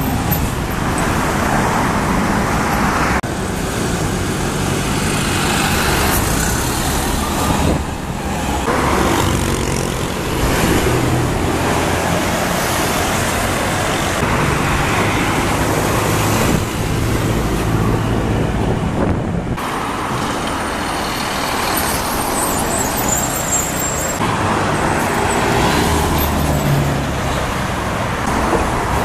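Diesel city buses passing and pulling away on a busy road, engines running under steady traffic noise. The sound jumps abruptly a few times as one bus gives way to the next.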